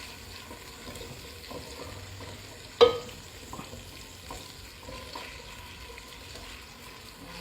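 Chopped onions frying in hot oil in a cooking pot, a steady sizzle as they start cooking down toward brown for a pilau base. Light stirring taps run through it, with one sharp loud knock a little under three seconds in.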